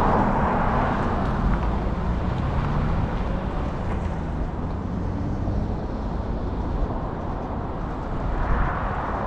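Steady car noise, a low engine and road rumble, with a louder swell near the end.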